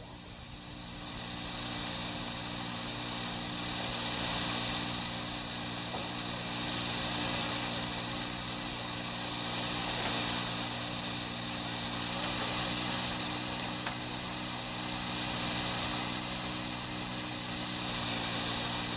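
Steady hum and hiss of an old 1983 police dispatch tape recording in a pause between radio transmissions.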